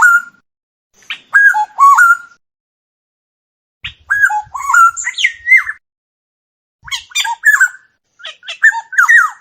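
Oriole song: four short phrases of fluty, gliding whistled notes, each about a second or two long, separated by clean silent gaps.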